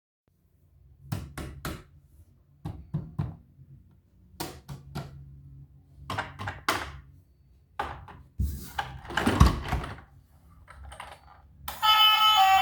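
Short knocks and clicks in quick groups of two or three, from toys and their packaging being handled. Guitar music starts near the end.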